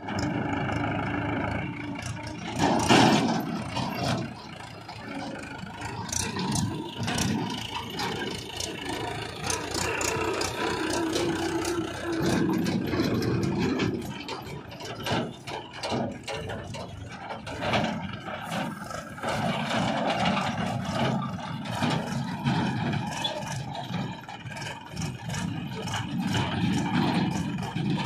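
Mahindra 475 DI tractor's diesel engine running as it pulls a trolley, the sound rising and falling in level, with frequent sharp ticks.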